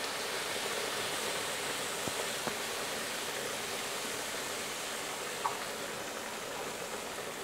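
Frying pan of food on the hob sizzling with a steady hiss while strained tomatoes are poured in.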